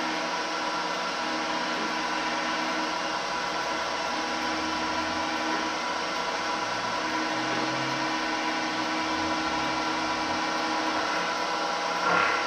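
Bridgeport milling machine with a cherrying head running, a steady motor and spindle whine as the end mill works in an aluminium block. A brief louder sound near the end.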